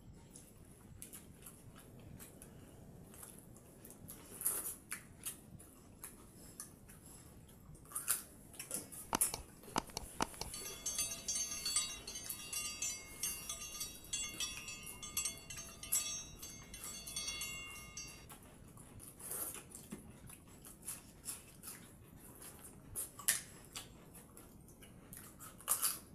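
People eating watered rice (pakhala) by hand from steel bowls: scattered small clicks and wet squishing of rice being mixed, with chewing. From roughly ten to eighteen seconds in, a faint steady chiming tone pattern sounds alongside.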